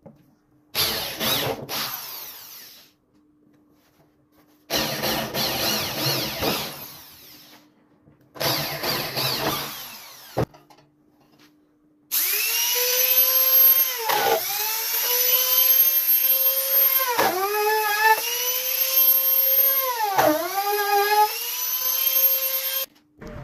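Corded electric drill boring into a wooden door panel in three runs of two to three seconds each. About twelve seconds in, a compact trim router starts up with a steady high whine for about ten seconds, its pitch dipping three times as the bit bites into the wood around the drilled holes.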